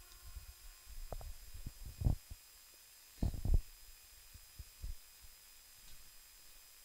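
A few faint, short, low thumps with quiet gaps between them, the strongest a cluster about three seconds in.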